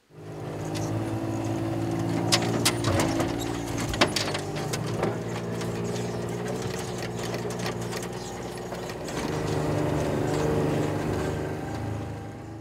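An engine running steadily at an even pitch, with a few sharp knocks in the first few seconds.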